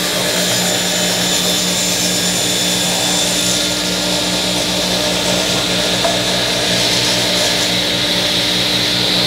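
Trolley circular saw, its blade tilted to 45 degrees and driven by a 5-horsepower electric motor, running steadily while it cuts through a wooden board. A steady motor hum under the hiss and whine of the blade in the wood, a little brighter in the first few seconds.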